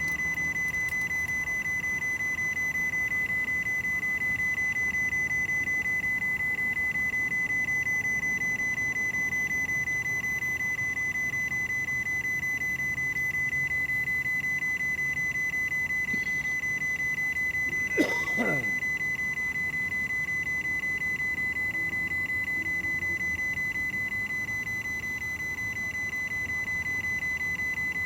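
A steady high-pitched electronic tone with a fast, faint pulsing, unchanging throughout. Once, about two-thirds of the way in, a sharp click comes with a quick falling sweep.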